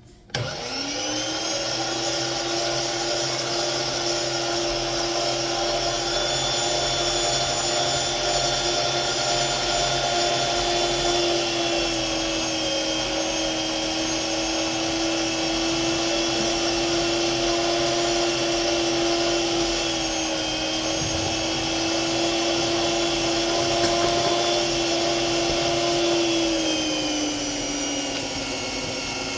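Electric food processor running at high speed, chopping meat and onions into a meatball mixture: its motor starts abruptly right away and then holds a steady high whine, dropping a little in pitch near the end.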